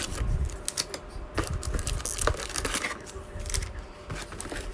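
Trading card packs and their cardboard box being handled: irregular light clicks, taps and brief crinkles of foil wrappers.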